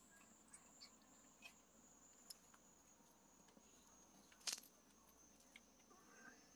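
Near silence: cats eating from a plastic bowl, with scattered soft clicks and one sharper click about four and a half seconds in, over a faint steady high-pitched drone.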